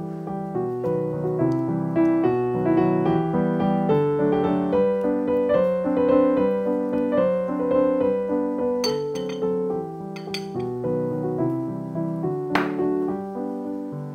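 Solo piano background music playing a gentle melody, with a few short clinks in the second half.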